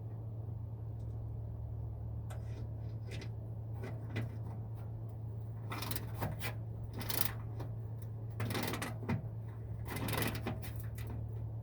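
A wrench turning a mounting bolt: short clusters of metallic clicks and scrapes, loudest in the second half, over a steady low hum.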